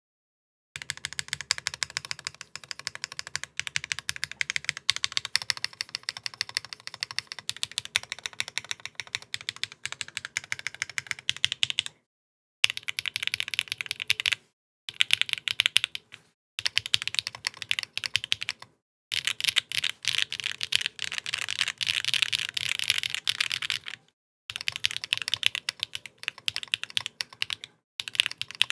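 Custom mechanical keyboard being typed on fast: HMX Macchiato linear switches on a UHMWPE plate with no foams or stabilisers, under GMK keycaps, a rapid clack of keystrokes. The typing comes in runs of a few seconds, with brief silent pauses between them.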